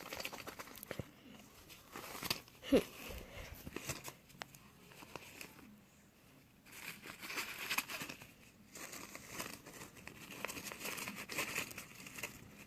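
Wrapping paper crinkling and tearing as a present is unwrapped, in irregular rustles with a short pause about halfway through. A short, sharp sound about three seconds in is the loudest moment.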